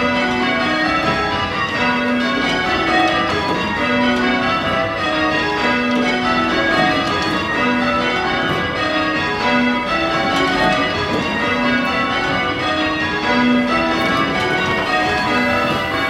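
A ring of eight tower bells, cast by Taylor's in 1965 with a 7 cwt tenor in B, being change rung: a continuous, evenly paced stream of bell strikes.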